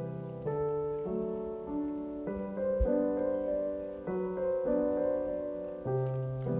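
Background piano music: soft notes and chords struck about every half second, each fading before the next.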